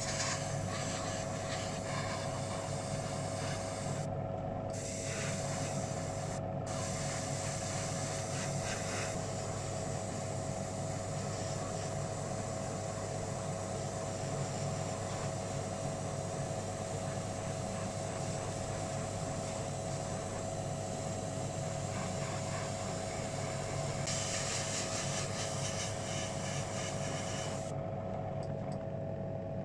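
Airbrush hissing as it sprays paint, over the steady hum of its air compressor. The hiss cuts out briefly twice, about four and six and a half seconds in, and stops near the end while the hum carries on.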